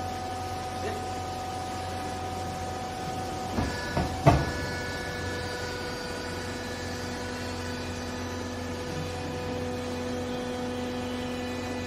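Hydraulic pump unit of a vertical used-clothes baler running with a steady hum, while its ram presses down on the clothes. Two sharp clunks come about four seconds in, and after them the pitch of the hum shifts to a lower note.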